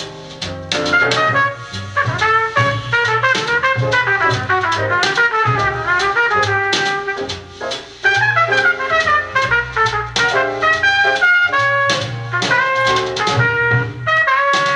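Jazz trumpet over a drum kit, played from a vinyl record on a KLH Twenty Plus stereo console and heard through its speakers in the room.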